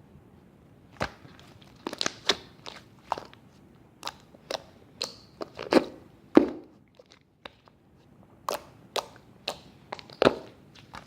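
Slime worked by hand: irregular sticky clicks and popping air pockets, roughly one or two a second, with a couple of louder squelching pops around the middle.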